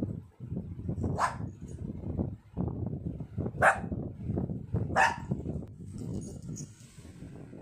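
Lhasa Apso dog giving three short, sharp barks, about a second, three and a half and five seconds in, over a steady low grumbling.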